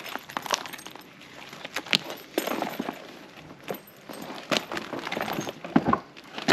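Handbags and a wallet being handled and rummaged through in a suitcase: rustling and bumping, with a few sharp clinks of metal chain straps and hardware.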